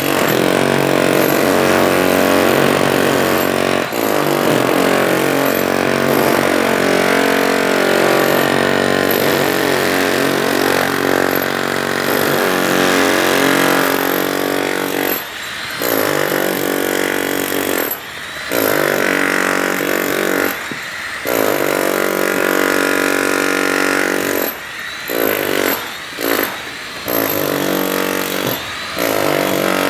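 Power drill motor running hard with a steady whine, its pitch wavering. In the second half it drops away briefly and comes back up several times.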